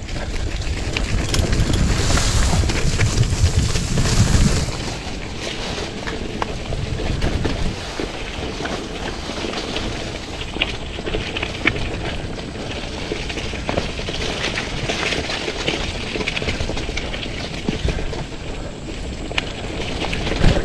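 Wind buffeting the microphone and rolling trail noise from a bike being ridden on dirt, with scattered clicks and rattles. The wind rumble is heaviest for the first four or five seconds, then settles to a steadier noise.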